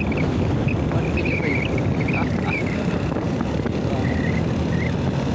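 Motorcycle riding along a road: engine running steadily with wind rushing over the microphone, and faint high wavering chirps now and then.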